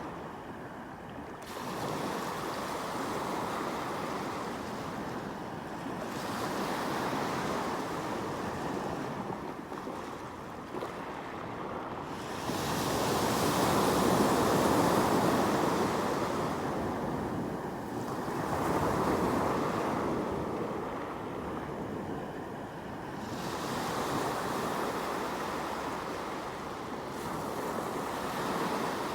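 Sea waves breaking and washing on the shore, the surge swelling and falling back every few seconds, loudest about halfway through.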